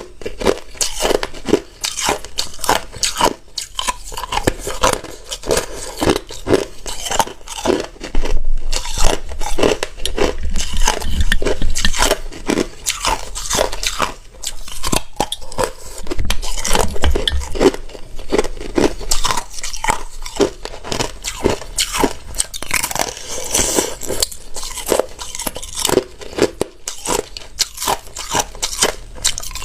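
A person biting and chewing hard ice close to the microphone: dense, irregular crunching and cracking, with bites following one another, loudest a few seconds in.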